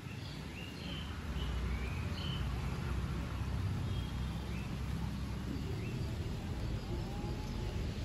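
Outdoor background: a steady low rumble with birds chirping over it, the chirps mostly in the first two seconds or so and a few more later.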